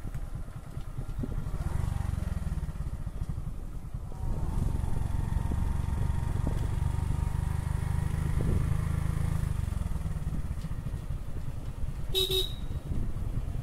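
Motorcycle engine running on the move, getting louder about four seconds in and easing off again near ten seconds. A short horn beep sounds near the end.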